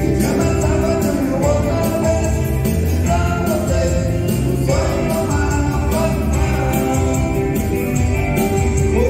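Live electronic keyboard music playing a lively soltinho dance rhythm, with a steady beat and bass under the melody.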